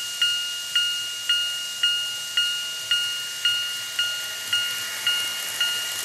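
Electronic level-crossing warning bell of a TOMIX N-gauge automatic crossing set, dinging steadily a little under twice a second as the crossing signals flash. Near the end the running noise of a model freight train passing the crossing comes in.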